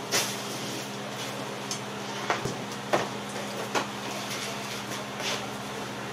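Clunks and knocks of road cases and equipment being shifted around in the back of a cargo van: a handful of separate hits, a second or so apart. A steady low hum runs underneath.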